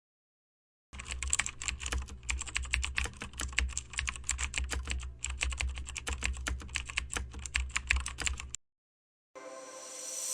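Computer keyboard typing: rapid, irregular key clicks, many a second, stopping about eight and a half seconds in. Near the end a rising swell begins.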